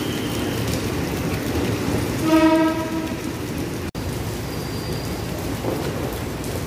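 Heavy rain falls steadily while a Jakarta KRL electric commuter train runs past. About two seconds in, a short train horn blast sounds, the loudest sound. Just before four seconds the sound cuts out for an instant, then the rain carries on.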